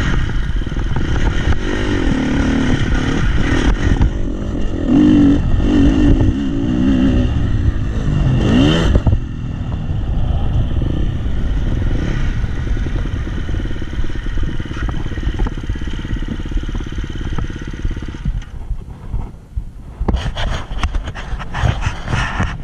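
Dirt bike engine under way, revving and easing off as the throttle is worked, with wind rush on the microphone. The pitch climbs steeply about eight seconds in. The engine drops away briefly near the end, then comes back over a run of rough clattering knocks.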